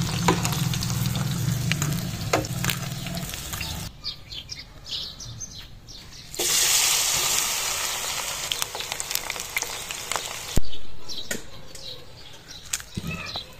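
Chicken pakoras deep-frying in hot oil in a steel pot, the oil sizzling. The sound changes abruptly a few times, and the loudest sizzling starts about six and a half seconds in and lasts about four seconds, ending at a sharp click.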